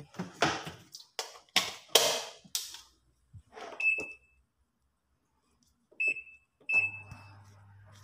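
Daewoo top-load washing machine control panel beeping as its buttons are pressed: three short high beeps at about four, six and seven seconds in, after a run of clattering knocks in the first three seconds. After the last beep a low steady hum starts as the machine powers up for a test run after its E2 door/drum switch fault was bypassed.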